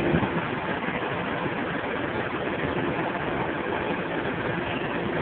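Steady running hum of a hydraulic-drive forging hammer's power unit, with a faint steady tone, while the ram is held up and no blow is struck.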